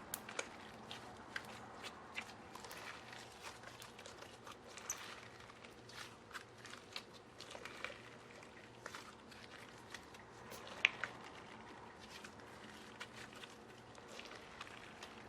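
Slime being squished and stretched by hand: faint sticky clicks and small pops at an irregular pace, with one louder pop about eleven seconds in.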